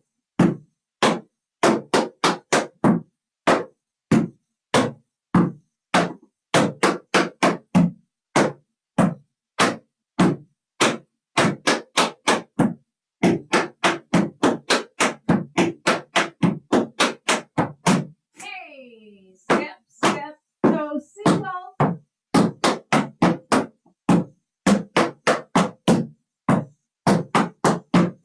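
Tap shoes striking a plywood tap board: a fast, uneven run of sharp taps as a tap combination is danced, with a brief short voice sound about two-thirds through.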